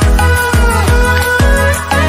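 Background music: an instrumental stretch of a pop song with a heavy bass beat about twice a second, each hit a short falling bass note, under held chords.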